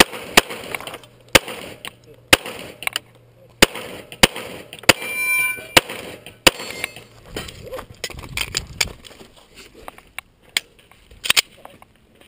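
Glock 35 .40 S&W pistol firing about a dozen single shots at uneven intervals, roughly one a second, while a shooter works through a USPSA stage.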